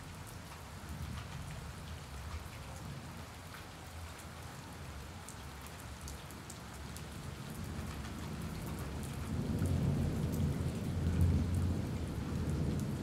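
Steady rain falling on a wet concrete roof, with scattered ticks of single drops. A low rumble swells over the last few seconds.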